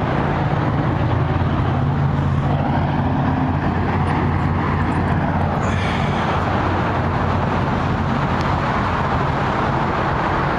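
A vehicle engine running steadily with a low, even hum and a rushing noise over it.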